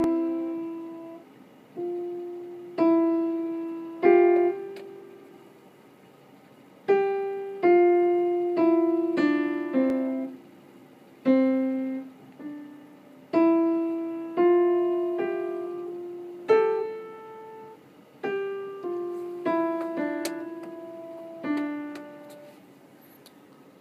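Yamaha upright piano played one note at a time in the middle register, each key struck and left to ring and die away, at a slow, uneven pace with a longer pause about a third of the way in.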